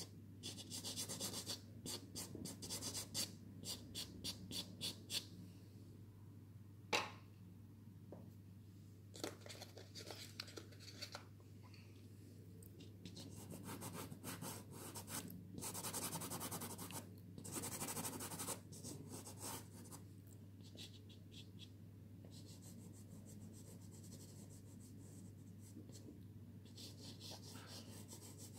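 Soft pastel stick scratching and rubbing across pastel card in runs of quick short strokes, with pauses between the runs. One sharp tap about seven seconds in.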